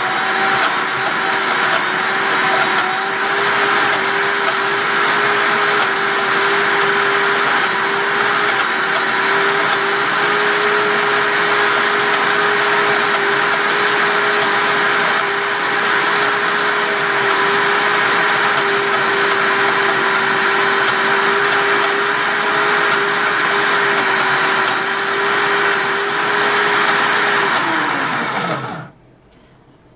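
Optimum G2.1 commercial-grade blender running at speed 6, grinding roasted nuts into nut butter: a loud, steady motor whine with a constant hum. Near the end the motor is switched off and its pitch falls as it spins down to a stop.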